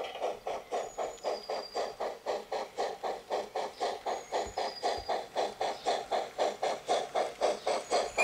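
Steam locomotive chuffing steadily and evenly, about four beats a second.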